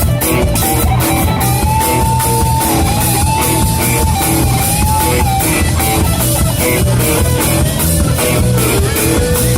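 Rock band playing: a lead guitar holds one long note that bends slightly up and down over steady drums and a heavy low end.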